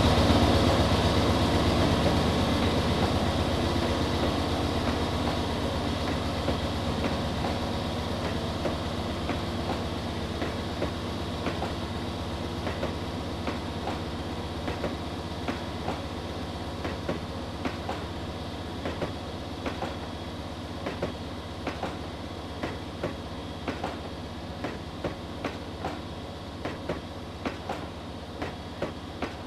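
Freight train passing: a diesel locomotive's engine hum fades in the first few seconds. Then a long string of iron-ore wagons rolls by, their wheels clacking regularly in pairs and groups over the rail joints while the overall sound slowly recedes.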